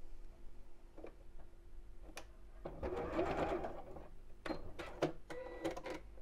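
Domestic electric sewing machine running briefly, about a second and a half, to put a short stitch along the fabric edge and hold the lace tie in place. Several sharp clicks follow as the machine is handled.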